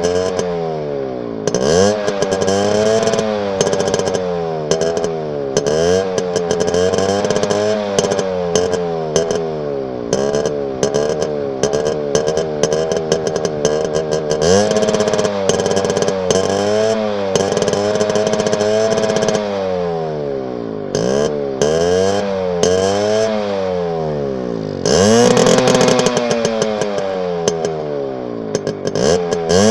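Suzuki engine being revved over a steady idle. It gives quick, repeated throttle blips in the first third, then several longer revs that climb, hold and fall back.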